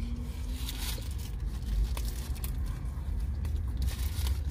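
Eating a fried chicken sandwich: bites, chewing and rustling of paper food wrappers, over a steady low hum inside a car.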